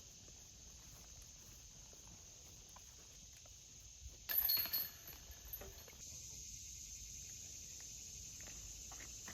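Steady high-pitched insect chorus, with a brief loud noisy burst lasting about half a second about four seconds in.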